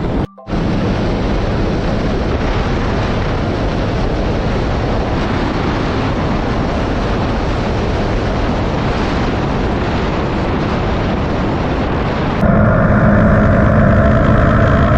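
Steady wind rush and road noise on the microphone of a motorcycle on the move, broken by a brief dropout just after the start. Near the end, background music with sustained tones comes in over it.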